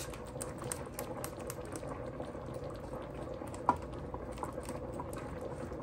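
Alfredo sauce of cream, cream cheese and parmesan bubbling in a skillet while a whisk stirs it: a steady fizz with many small pops and clicks, and one sharper tap about three and a half seconds in.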